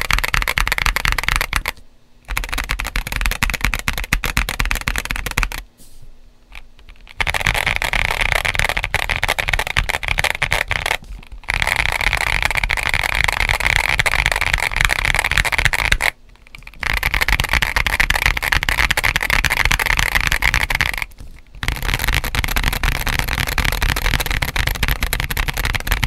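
Fast typing on a GAS67 mechanical keyboard with lubed Gazzew U4T tactile switches and MG White SA-profile ABS keycaps, dampened with polyfill and tape mods, a thocky, dense run of keystrokes. It stops briefly five times.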